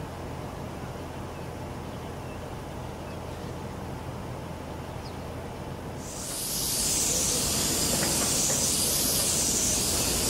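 Low steady rumble of a train standing at the platform, then about six seconds in a loud hiss of compressed air being let out of a train's air system. The hiss swells and dips twice and cuts off suddenly.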